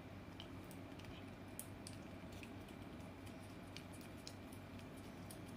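Scottish Fold cat licking paste from a squeeze-tube cat treat: faint, irregular wet clicks of its tongue, a few a second.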